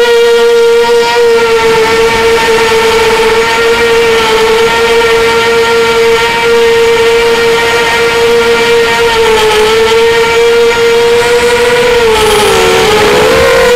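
Strider Flex 250 FPV quadcopter's brushless motors and propellers whining steadily, heard up close from the onboard camera; near the end the pitch dips and wobbles as the throttle changes.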